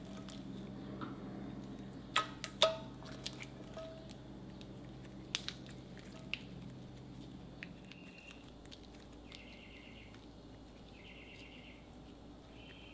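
Hands pressing and stretching fluffy slime: soft squishes and small crackles, with a quick run of sharp pops of trapped air about two seconds in and a few more later.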